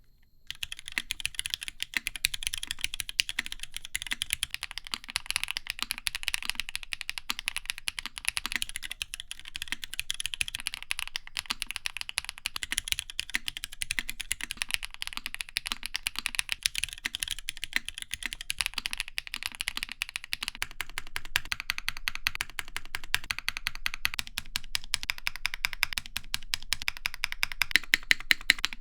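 Typing sound test on a KBDfans Agar, an HHKB-layout mechanical keyboard: a fast, continuous stream of keystroke clacks. From about two-thirds of the way in the strokes become more evenly spaced, with louder individual strokes near the end.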